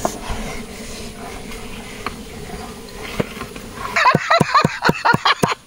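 Faint steady hiss for about four seconds, then a large knife chopping small onions on a wooden board: quick, even chops, about five a second.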